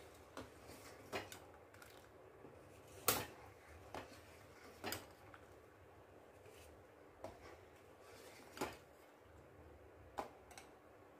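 Steel ladle clinking against the sides of a steel pan while stirring thickening milk. There are about nine irregular clinks, the loudest about three seconds in, over a faint steady hiss.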